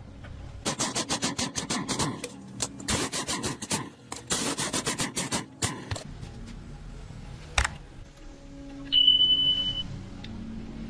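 Repair-work noise: three runs of rapid scraping or rasping strokes, then a single sharp knock and a brief steady high tone.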